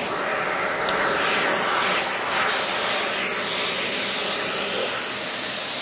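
Dyson Ball upright vacuum cleaner running, a steady rush of air from its motor, with a small click about a second in.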